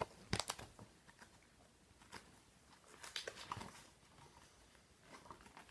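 Light rustles and clicks of a picture book being handled, its paper page turned.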